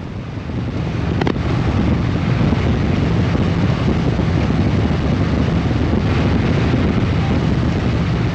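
Wind rushing over the microphone and a motorcycle engine running at highway speed. The rush builds over the first second or two and then holds steady, with a faint click about a second in.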